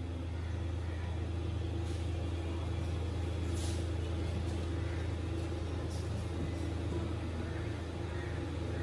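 A steady low hum without a break, with a fainter higher tone over it.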